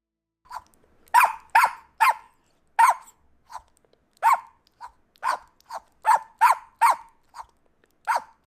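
A dog barking in a series of about fifteen short, sharp barks at an uneven pace, closer together, about two or three a second, in the second half.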